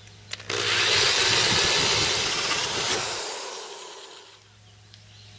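Power drill with a hole saw cutting through black plastic drain pipe: a loud cutting noise for about two and a half seconds, then the drill winding down with falling pitch as the hole saw breaks through.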